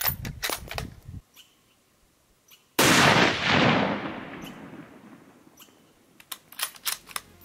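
A single hunting-rifle shot about three seconds in, a sharp crack whose report fades away slowly over two to three seconds. Faint rustling and a few small clicks come before and after it.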